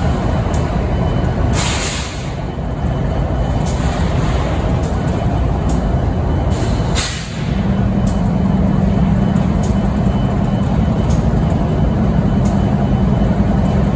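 Diesel locomotive idling, with two short air hisses, about a second and a half in and about seven seconds in. After the second hiss a steady low hum sets in under the idle and holds.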